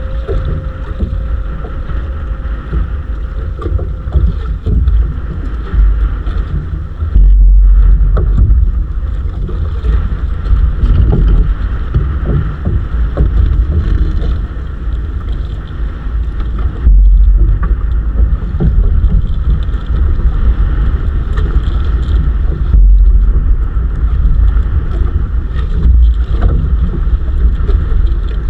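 Wind buffeting the microphone aboard a small wooden outrigger fishing boat at sea, a heavy rumble with water noise beneath it. Three strong gusts hit, at about 7, 17 and 23 seconds in.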